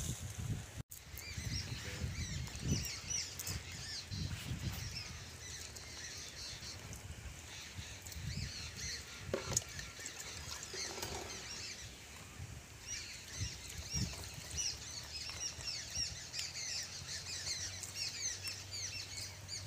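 Many birds chirping in quick, short, high calls, thickest in the second half, over low rustling and handling noise with a couple of knocks.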